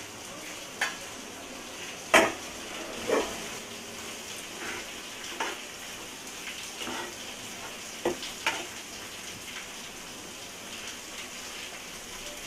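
Prawns sizzling steadily in hot oil in a nonstick kadai while a spatula stirs them. The spatula scrapes and knocks against the pan about eight times at irregular intervals, loudest about two seconds in.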